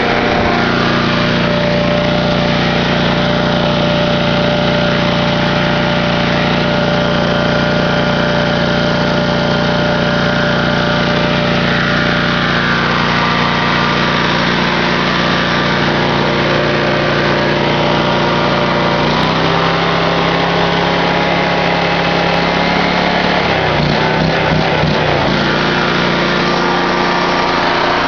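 Small OHV gas engine driving a Harbor Freight #45416 generator head, running steadily during a load test. A little past the middle, its note drops slightly lower.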